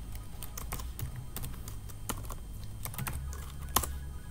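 Typing on a computer keyboard: irregular key clicks, with one sharper click near the end, over a steady low hum.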